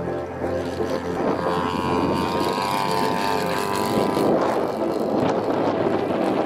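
Radio-controlled model aerobatic plane's engine and propeller running steadily as it flies low past and climbs away, the engine note rising slightly about a second and a half in.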